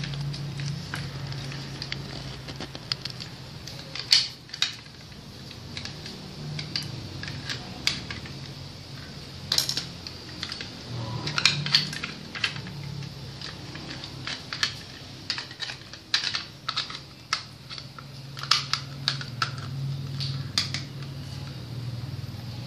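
Irregular clicks and knocks of wooden and metal parts being handled and fitted as the wooden front handguard goes onto an S&T SVD Dragunov airsoft rifle, over a steady low hum.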